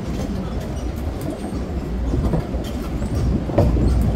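Boardwalk tram rolling along a wooden boardwalk: a steady low rumble with irregular clicks and knocks as the wheels cross the planks, growing louder about three and a half seconds in.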